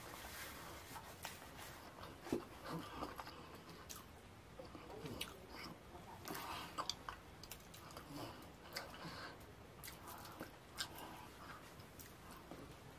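Close-miked eating sounds: chewing, lip smacking and finger licking of fufu with slimy ogbono soup, made up of irregular wet clicks and smacks.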